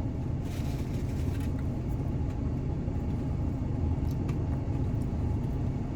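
Steady low rumble of an idling car engine, with a few faint clicks over it.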